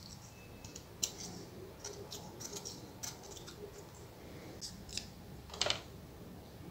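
Faint handling sounds while a laptop heatsink is cleaned of old thermal paste: soft rustling of tissue and scattered small clicks, with a short cluster of clicks about five and a half seconds in as a thermal paste syringe is brought to the CPU.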